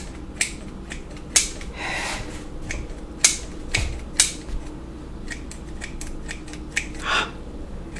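Poultry shears snipping through a doll's hair: a handful of sharp, irregularly spaced snips, with softer rustling of the hair between cuts.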